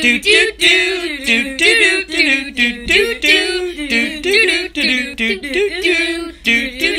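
A single high voice singing a quick tune with no accompaniment.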